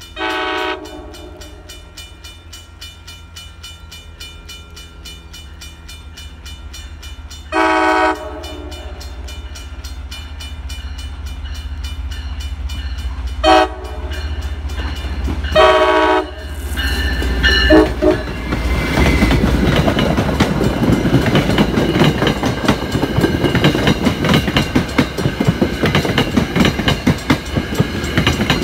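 A diesel commuter train's horn sounds the grade-crossing warning, long, long, short, long, as it approaches, with a crossing bell ringing steadily underneath. After the last blast, about 17 seconds in, the locomotive and coaches rush past close by, the wheels clattering over the rail joints.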